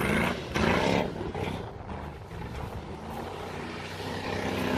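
Pickup truck engine, a 1997 Chevrolet Silverado, revving hard as the truck spins its tyres through a dry dirt field, the revs rising and falling and climbing again near the end.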